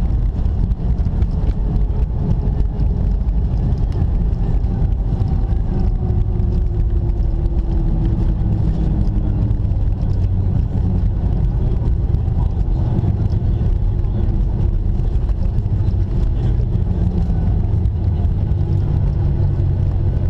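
Cabin noise of a Boeing 737-800 slowing on the runway after touchdown: a steady low rumble from the wheels and airframe, with the CFM56 engines' hum and faint whines that slowly fall in pitch.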